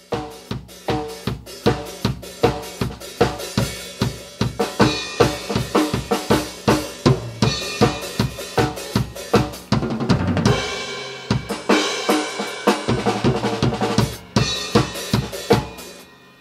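Drum kit playing a steady rock beat, about three hits a second, with a cymbal crash about ten seconds in; it stops just before the end.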